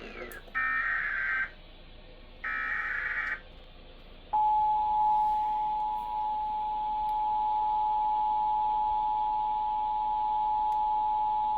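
Emergency Alert System SAME header: two about one-second bursts of screechy digital data tones, here encoding a Tornado Watch (TOA) alert. After a short pause comes the steady two-tone EAS attention signal, starting about four seconds in and holding without a break.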